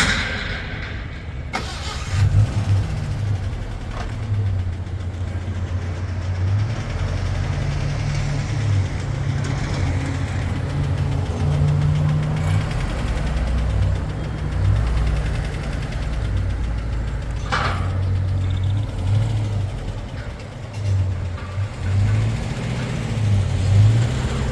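A car engine running, with a steady low rumble that rises and falls in level, and a brief sharp sound about seventeen seconds in.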